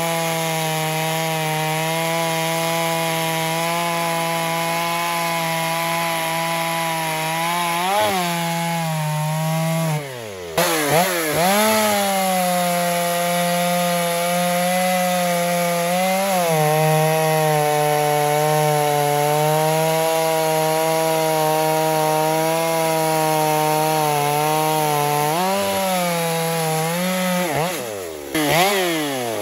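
Stihl MS250 two-stroke chainsaw running at full throttle while cutting through hard, seasoned yellow locust, its engine note held steady under load. The engine speed drops sharply and climbs back twice, about ten seconds in and again near the end.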